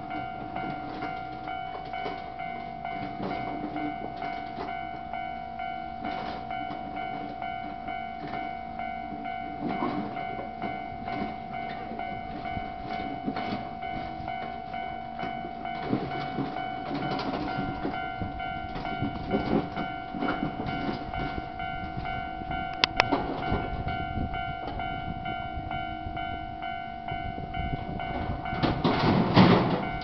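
Japanese railway level crossing alarm ringing continuously with repeated dings, over the running and rail noise of a Nankai 7100 series train pulling in to the station. A sharp click comes about two thirds of the way through, and a louder swell of noise near the end.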